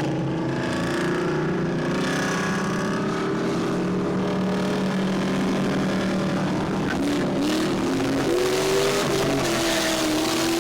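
Car engine running steadily, with its pitch rising and falling in revs from about seven seconds in.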